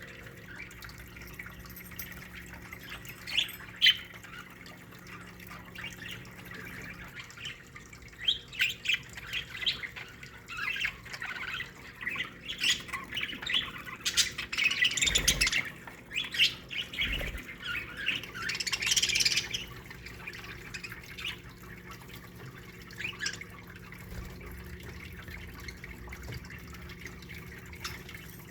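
A colony of budgerigars chirping and warbling, the chatter busiest through the middle and sparse at the start and end, with a couple of brief low thuds.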